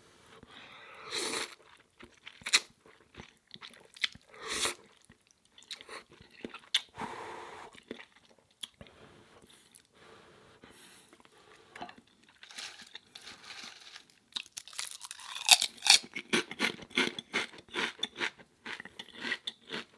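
Close-miked eating: scattered bites and chewing, then, from about three-quarters of the way in, rapid loud crunching of seaweed crisps being bitten and chewed.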